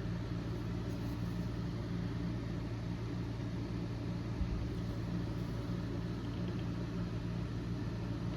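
Steady low mechanical hum, like a running motor or engine, with a single soft low thump about four and a half seconds in.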